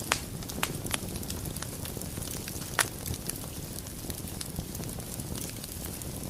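Wood fire burning in a fireplace: a steady low rumble and hiss with scattered sharp crackles and pops, the loudest just after the start and near three seconds in.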